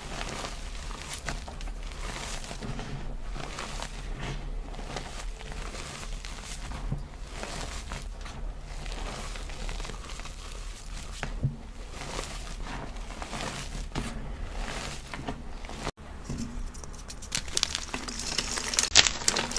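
Dyed gym chalk cubes being crushed and crumbled, a run of irregular dry crunches and crackles. After a brief dropout about three-quarters of the way through, the crunching turns denser and sharper.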